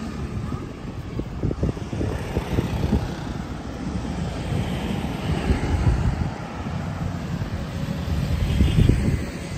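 Motorbike and car traffic running past on the road, a steady engine drone that swells about six seconds in and again near the end, with wind buffeting the microphone.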